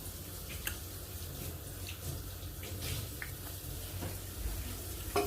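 Someone eating: a few light clicks and small mouth smacks, spread out over a low steady hum.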